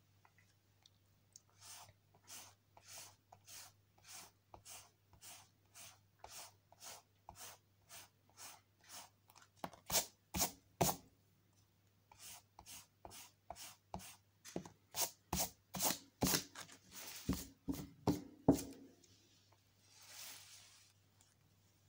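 Rhythmic scratching strokes of a drawing tool across paper, as in colouring in, about one and a half to two strokes a second. The strokes get louder from about ten seconds in, come in quick groups until they stop about three seconds before the end, and are followed by one soft swish.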